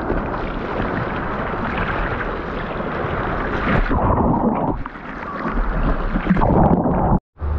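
Breaking ocean surf rushing and churning close around a camera at the waterline. It dulls for a moment about halfway, swells again, then cuts off abruptly near the end.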